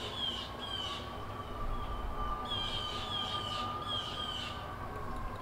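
A distant siren wailing, one long tone that rises slowly and falls again, with a bird singing runs of short, high notes that each slide downward, in two bursts.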